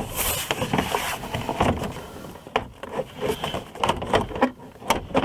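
Plastic interior door trim panel being hung on the door and shifted into place, with irregular knocks, clicks and rattles as it is handled.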